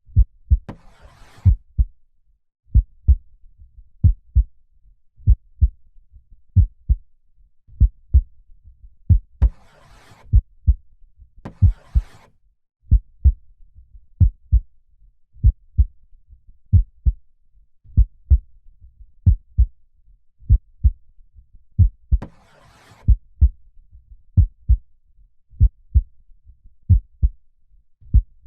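Slow, steady human heartbeat: double lub-dub thumps repeating a little over a second apart. A few soft breaths come in among the beats, around ten and twelve seconds in and again about twenty-three seconds in.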